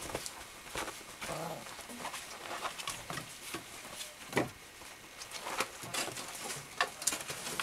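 Alaskan Malamute puppies scuffling in play on a wooden porch: paws and claws patter and scrape on the boards and bedding in irregular clicks and knocks, with one louder knock about four seconds in.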